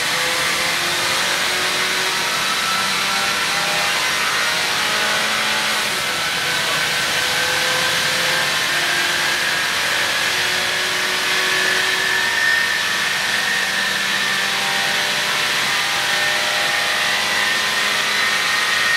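Car engine running under load on a chassis dynamometer, a steady loud rasping noise from the exhaust leak, with a faint whine that rises slowly in pitch over the middle.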